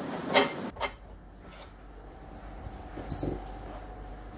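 Metal hardware being handled: a couple of short knocks and scrapes from a spanner on the bolts of steel angle plates in the first second, then a single light metallic clink about three seconds in.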